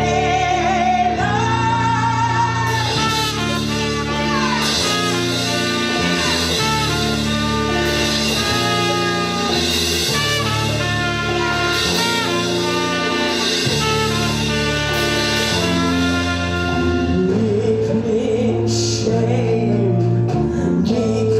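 Live band music: a trumpet plays over an electric bass guitar line, with women singing.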